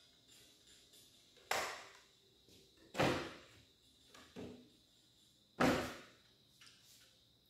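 Four sharp metal knocks, each ringing briefly, the third softer: power tools in their holders being set down and shifted on a steel tool table.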